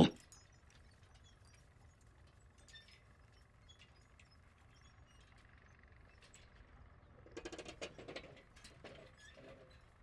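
Near silence: faint room tone with a few scattered soft clicks, and a brief faint stretch of clicking and low sound between about seven and ten seconds in.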